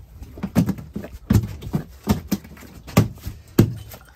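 A freshly caught fish flapping on the line and slapping against the boat deck: a run of about ten irregular thumps.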